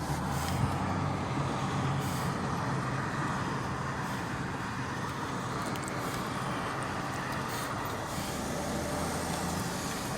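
Car driving along a city street: steady engine hum and road noise.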